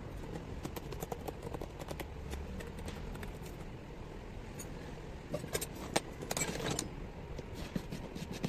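Irregular sharp clicks and light metallic taps of hand tools and parts being handled during alternator repair work, over a low steady hum; a quick cluster of taps comes a little past the middle.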